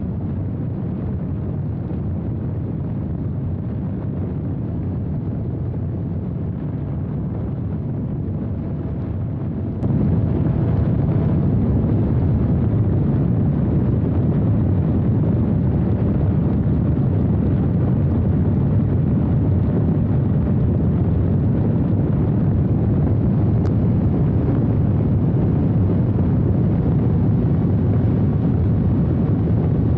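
Wind rushing over the onboard camera's microphone on a 3D-printed RC plane in flight: a steady low buffeting rumble. It steps up louder about ten seconds in.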